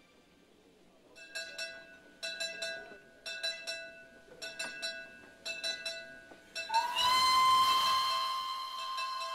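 A bell struck in quick runs of three, about once a second. About seven seconds in, a steam locomotive's whistle sounds, rising briefly in pitch to a steady high tone over a rush of escaping steam, signalling the train's departure.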